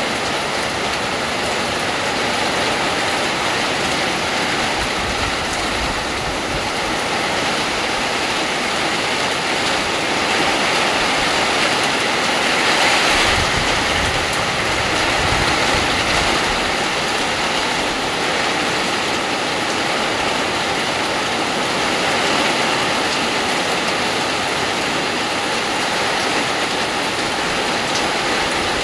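Heavy rain pouring steadily, a dense even hiss that grows a little louder for a few seconds near the middle.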